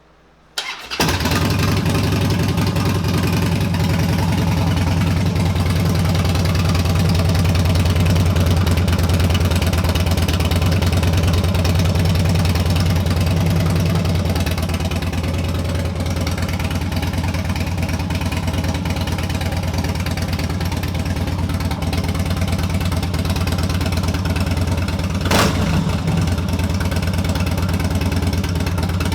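Harley-Davidson V-twin running through a new Two Brothers Racing Comp S exhaust, coming in abruptly about a second in and then idling steadily, with one sharp click near the end.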